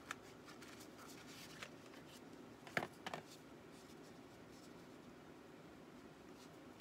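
Faint handling of a small cardboard box holding a vacuum tube: a few light clicks and rustles, the loudest pair about three seconds in, over quiet room tone.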